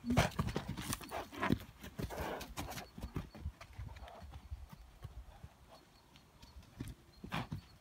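Hoofbeats of a young Trakehner mare galloping and bucking on a soft dirt round-pen surface: a quick run of dull thuds, heaviest in the first second or so, thinning out in the middle and picking up again near the end, with a short rushing noise about two seconds in.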